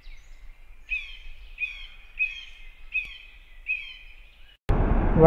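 A bird calling: about five short, high, downward-sliding chirps, repeated roughly every 0.7 seconds. Near the end the sound cuts abruptly to road traffic noise with a motorcycle engine.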